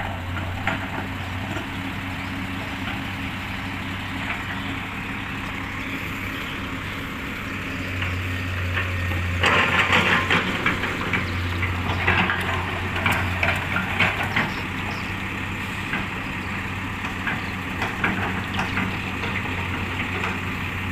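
Komatsu PC200-8 excavator's diesel engine running steadily, working harder from about eight seconds in, with bursts of clattering and cracking that are loudest between about ten and fourteen seconds.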